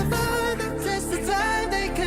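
Background pop song playing, a sung vocal line over a steady bass.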